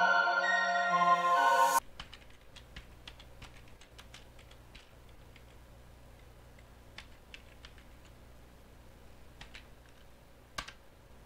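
Music that cuts off abruptly about two seconds in, then faint typing on a computer keyboard: scattered single keystrokes over a low hum, with one sharper key click near the end.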